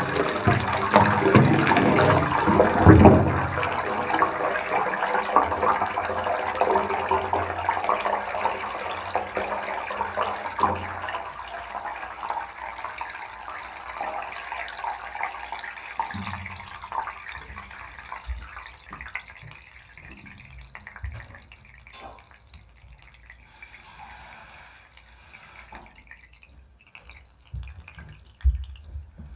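Water running down a household drain pipe, rushing and gurgling loudly at first, then fading over about twenty seconds to faint scattered gurgles and knocks.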